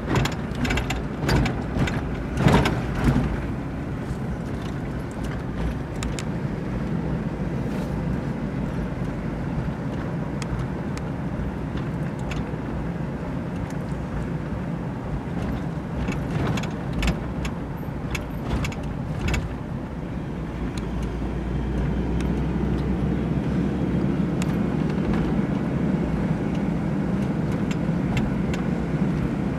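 Cabin noise from inside a moving vehicle: a steady engine and road rumble, with a few sharp knocks in the first few seconds and again about halfway through. The rumble gets a little heavier in the last third.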